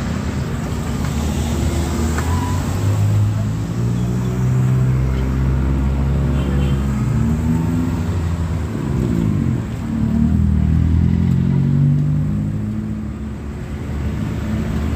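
Road traffic: cars and motorcycles driving past, their engine notes overlapping and rising and falling in pitch as they come and go.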